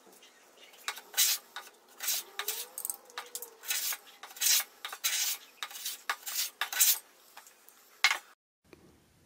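Restored Sargent bench plane taking quick strokes along the edge of a board, each pass a short rasp of the blade shearing off a shaving, about a dozen passes at roughly two a second, with a last sharp stroke near the end.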